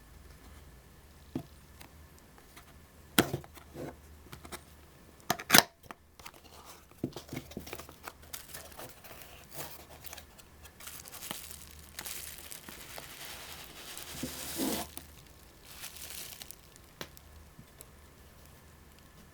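Packaging being handled and torn open: crinkling and tearing, with a few sharp clicks and knocks in the first half, the loudest about five seconds in, and a long stretch of crinkling near the middle.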